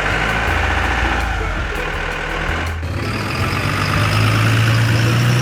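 Truck engine sound, as from an RC model truck's engine sound unit, running steadily. It changes abruptly about three seconds in, then holds a steady hum that rises slowly in pitch.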